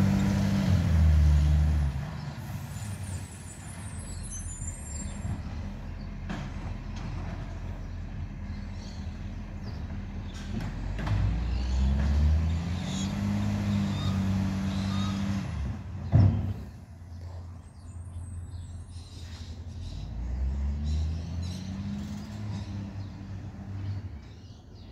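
Garbage truck's diesel engine pulling away, its pitch rising and dropping through gear changes three times over and fading as it draws off. A single sharp knock comes about two-thirds of the way through.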